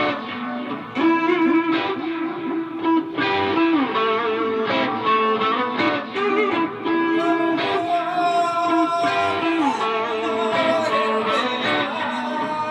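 Guitar music played live: plucked notes, some held and bending in pitch.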